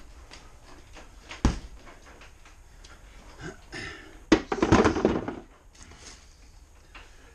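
A single thump about a second and a half in, then a brief clatter of knocks as objects are handled and set down, loudest about four and a half seconds in.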